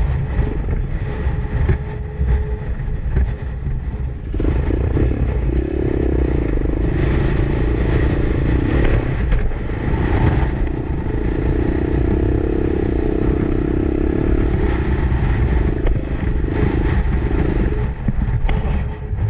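Motorcycle engine running while riding, over a constant low rumble; from about five seconds in until near the end its note holds steady and stronger.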